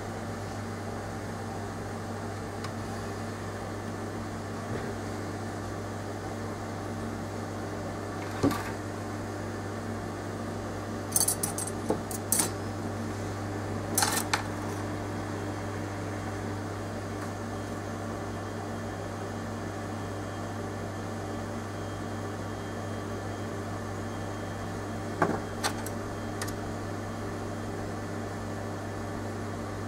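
A steady electrical hum with a few small, sharp metallic clicks and clinks now and then, like small tools being picked up and set down on a workbench.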